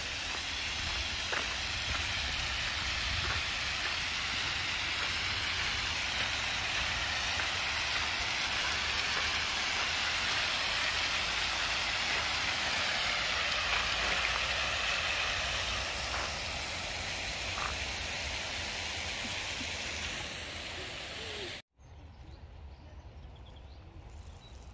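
Many arcing fountain jets spraying water into a shallow basin: a steady splashing hiss. It cuts off abruptly near the end, leaving much quieter outdoor ambience.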